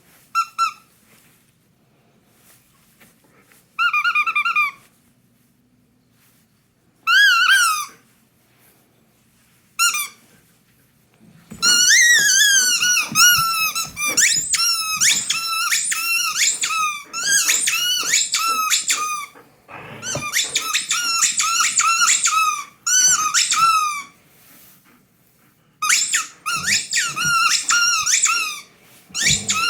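A dog's squeaky toy being squeezed in her mouth, giving high-pitched squeaks. At first come a few separate squeaks, then from about a third of the way in there are long runs of rapid, almost unbroken squeaking with short pauses between them.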